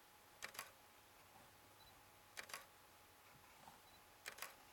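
A camera shutter firing three times, about two seconds apart, each shot a quick double click, against near silence.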